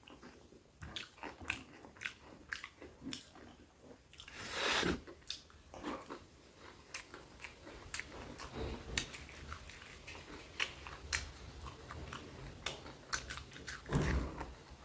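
Close-up eating sounds: a person chewing and biting food, with many sharp wet mouth clicks and smacks, and a longer, louder noisy burst about four and a half seconds in.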